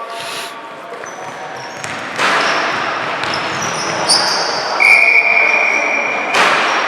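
Basketball game on an indoor court: a ball bouncing, with short high squeals over it and the sound echoing in the hall.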